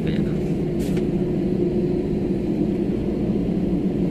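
Steady drone inside a jet airliner's cabin as it taxis: engines and cabin air running with an even hum. A single sharp click at the very start.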